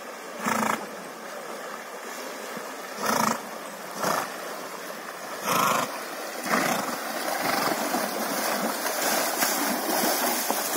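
Horses swimming in a river: a horse blows hard through its nostrils five times, a second or two apart. In the last few seconds splashing water builds as the horses wade into the shallows.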